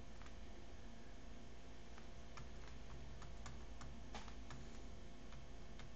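Light, irregular clicks and taps of a stylus on a pen tablet as equations are handwritten, over a low steady hum.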